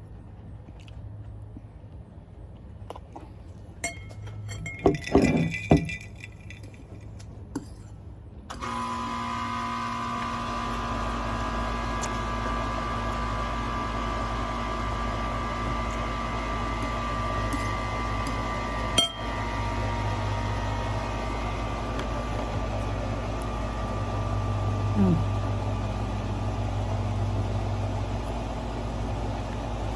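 A few sharp clinks of glass or dishware, then, about eight seconds in, a steady machine hum with a low rumble switches on suddenly and keeps running, broken once by a sharp click.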